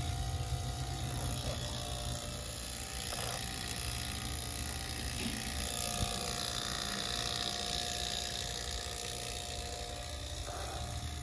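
Steady machine hum with a constant mid-pitched tone running through it.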